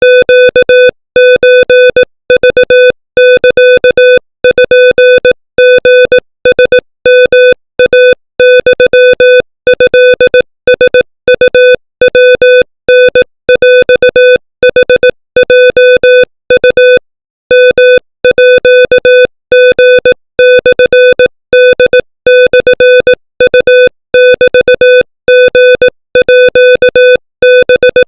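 Morse code sent at 25 words per minute as a single mid-pitched beep keyed on and off in quick dots and dashes, with short pauses between letters and longer ones between words.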